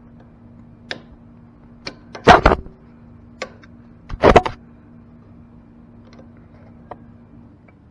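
Metal hand tools clinking and scraping on the exposed rocker-arm valve adjusters of a GY6 150cc scooter engine while the valve clearance is being set. There are two louder clanks, about two and four seconds in, with a few light ticks between them.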